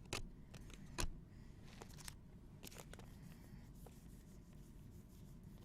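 Trading cards being handled: a few short taps and scrapes as cards and packs are slid and flipped, the loudest about a second in.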